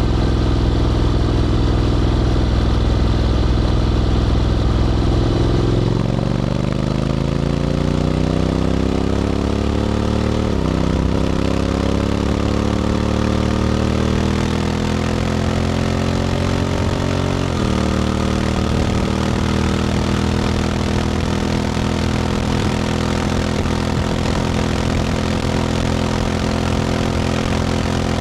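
Honda X-ADV 750 parallel-twin engine through an SC-Project titanium slip-on exhaust, running at low revs, then pulling away. It rises in pitch, drops sharply at two upshifts of its automatic gearbox about ten and seventeen seconds in, then settles to a steady cruise.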